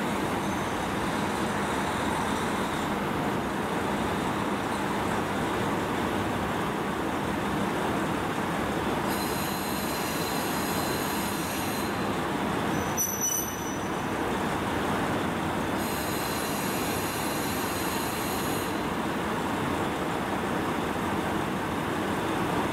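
JR Hokkaido KiHa 40 diesel railcar idling at the platform, a steady engine rumble. A high-pitched whine comes in twice, about three seconds each time.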